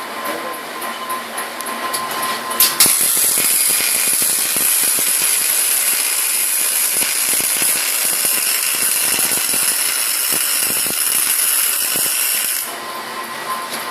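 Welding arc of an automated clutch welding machine striking with a sharp click about three seconds in. It then runs as a loud, crackling hiss for about ten seconds before cutting off suddenly.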